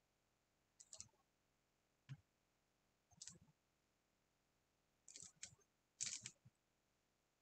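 Tennis ball struck by rackets and bouncing on a hard court, heard faintly as a few short, sharp pops and knocks spread over several seconds. The loudest cluster comes about six seconds in.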